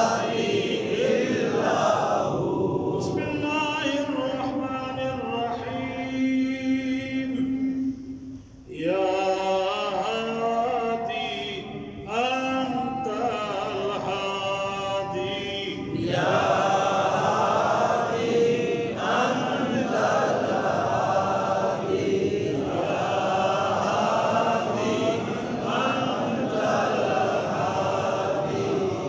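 Group of men chanting a devotional recitation together. Between about two and eight seconds in, the sound thins to fewer voices ending on a long held note, and after a brief dip the voices come back, fuller from about sixteen seconds.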